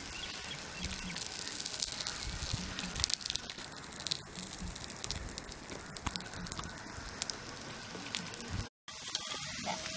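Puran polis frying in oil on an iron tawa over a wood-fired clay stove: a steady sizzle with many small crackles and pops. The sound breaks off for a moment near the end.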